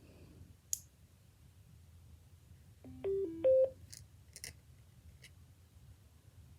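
Radioddity GD-77 handheld radio beeping a short four-note tone sequence about three seconds in, with a few sharp button or key clicks before and after it.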